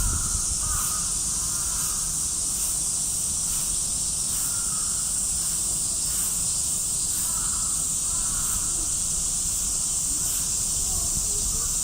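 Steady high-pitched shrilling drone of summer cicadas, with a few faint short wavering calls in the background: near the start, about four seconds in, and again around seven seconds.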